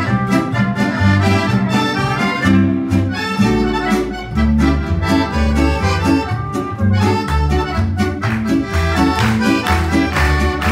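Live folk band playing an instrumental passage: accordion leading over a plucked double bass walking line, with mandolin and guitar strumming a steady rhythm. Sharp hand claps join on the beat near the end.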